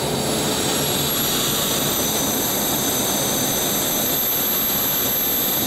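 BD-5J's Microturbo TRS-18 turbojet running steadily, a high whine over a rushing roar, heard close up from a camera on the airframe. The whine edges up in pitch about a second and a half in.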